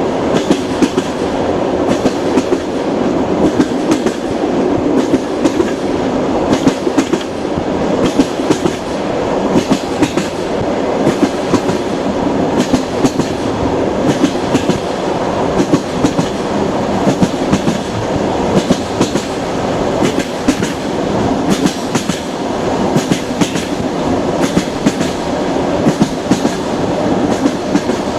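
Train rolling steadily along the track: a continuous rumble of the railway cars, with repeated clickety-clack of the wheels passing over rail joints.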